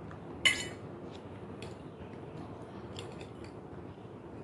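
Metal fork clinking sharply once against a stainless steel pot about half a second in, with a brief ring, followed by a few fainter clicks and taps as fish is picked apart in the pot.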